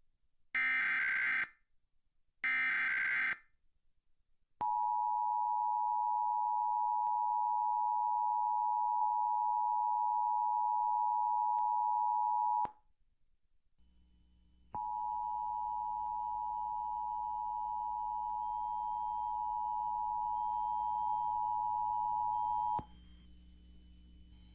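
Emergency Alert System test tones: the last two of the three digital SAME header bursts, each about a second of screeching data, then the two-tone attention signal (853 and 960 Hz) held steady for about eight seconds. After a short gap, a second attention signal sounds for about eight more seconds over a low hum.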